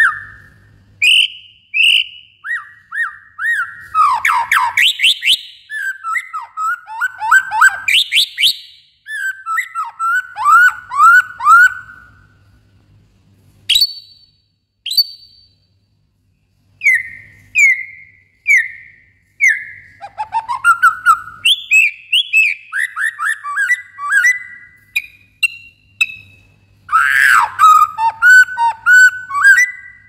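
White-rumped shama (murai batu) singing: a loud run of varied whistled phrases with quick rising and falling notes, a short lull about halfway through, then a fresh burst of song.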